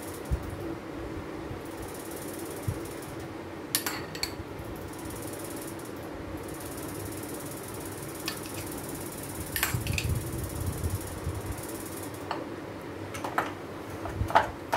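A steel spoon clicking a few times against a plate and fruit as banana slices are dropped onto a cream-topped cake, over a steady mechanical hum.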